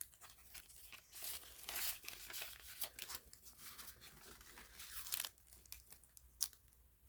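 Paper bills and envelopes being handled, with soft irregular rustling and crinkling and a few sharper crackles.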